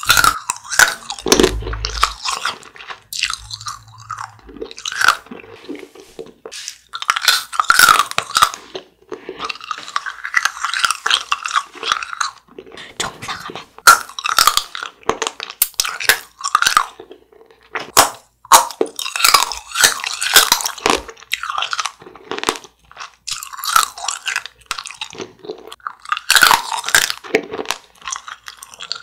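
A person biting and chewing a candy, crunching in irregular bursts of crisp crackles with short pauses between chews.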